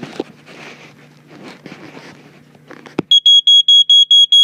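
Family Guard smoke alarm sounding its test: a loud, high-pitched electronic beep repeating rapidly, about five times a second, starting about three seconds in just after a sharp click. Before it, crackling handling noise on the microphone over a low hum.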